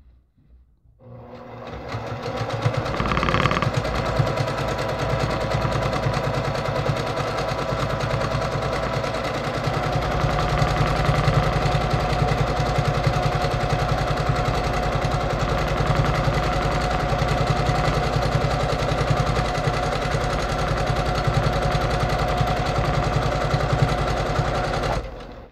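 Brother PQ1500SL straight-stitch sewing machine stitching steadily while free-motion quilting through a quilt sandwich. It starts about a second in, builds up to speed and stops just before the end.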